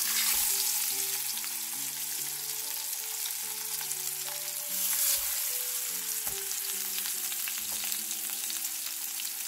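Hilsa fish steaks frying in hot mustard oil, a dense crackling sizzle that surges as a steak is laid into the pan at the start and swells louder again about five seconds in. Soft background music runs underneath.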